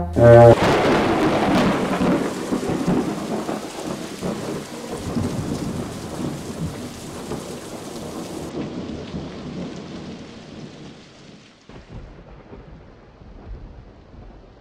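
A long roll of thunder, loudest just after the start and slowly dying away over about ten seconds, with rain falling throughout.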